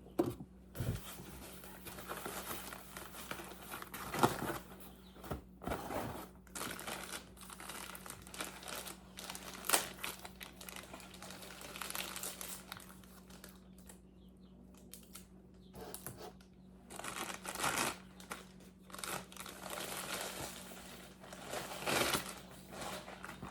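Packaging crinkling and rustling as it is handled and pulled away during unboxing, in irregular bursts with a few sharper crackles. A faint steady hum runs underneath.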